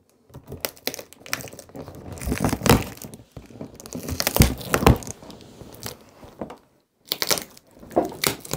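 Cardboard and plastic packaging being handled and pulled apart, with tape being torn free: irregular crinkling and tearing noises, loudest around three and five seconds in.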